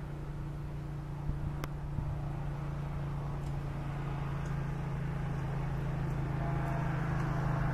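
CSX freight train's diesel locomotive approaching: a steady low engine drone that grows gradually louder. A few faint sharp ticks come between one and two seconds in.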